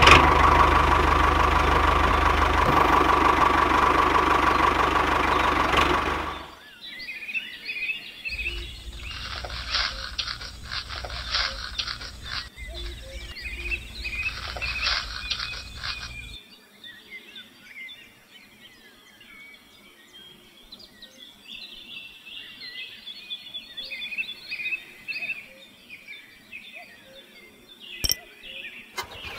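A tractor engine runs steadily for about six seconds and then cuts off. After a short pause a rattling machine noise follows for about eight seconds. Then birds and insects chirp quietly.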